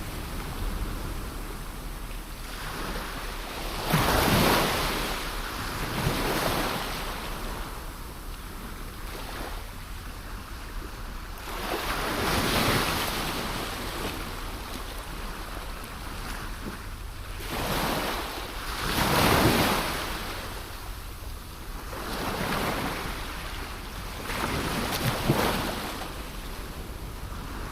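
Sea waves breaking and washing in, swelling and fading every few seconds, with the strongest surges about 4 s, 12 s and 19 s in. A low steady rumble of wind on the microphone runs underneath.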